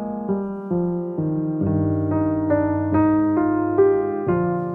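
Background music: a gentle piano piece, single notes struck about two a second and left to ring, with lower bass notes coming in partway through.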